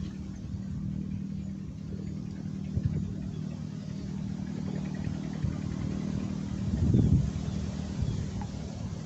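Steady hum of a small engine running at an even speed, with a brief louder low rumble about seven seconds in.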